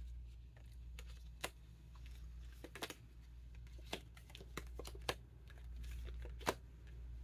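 Light, scattered clicks and taps of oracle cards being handled, about seven over several seconds, over a low steady hum.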